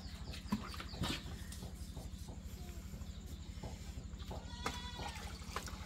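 A short pitched animal call a little after four and a half seconds in, with a couple of light knocks in the first second, over a steady low hum.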